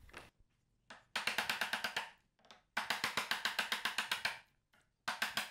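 Light, rapid hammer taps on a chisel, driving it down into a wooden stool apron: three runs of about nine taps a second with short pauses between.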